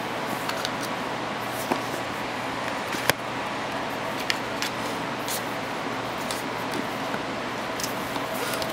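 Hands handling a hard plastic watch box: a few light clicks and taps, the sharpest about three seconds in, over a steady background hiss.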